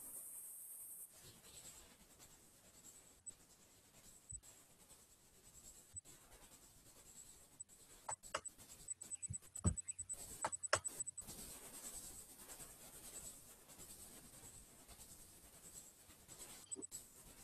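Sparse light clicks and taps from handling things at a desk, bunched together about halfway through, over a faint steady high whine.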